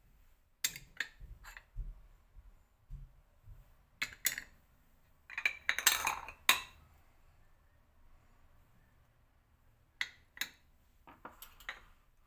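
Kitchen utensils and dishes clinking and knocking as they are handled, in scattered irregular clicks with a dense cluster around the middle and a few more near the end.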